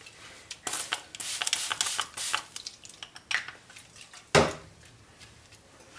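Alcohol sprayed from a hand pump spray bottle onto soap foam in a quick run of short squirts, with one more about three seconds in, to knock the foam down. A single sharp knock a little past four seconds in is the loudest sound.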